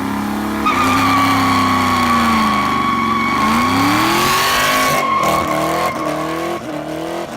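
A car's tyres squealing steadily while the engine revs, with the engine pitch dropping and then climbing again. The squeal starts under a second in and stops near the end.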